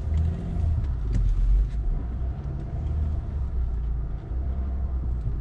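Range Rover Sport's 3.0-litre V6 diesel engine pulling the SUV slowly up a rutted, uneven dirt slope: a steady low rumble, with a few light knocks a second or two in.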